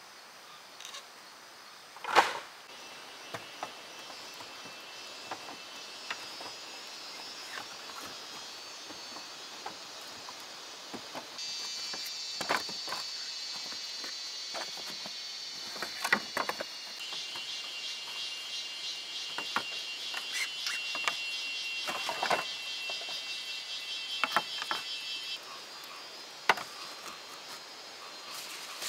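Insects trilling steadily in the background, with scattered knocks and taps throughout and one sharp knock about two seconds in.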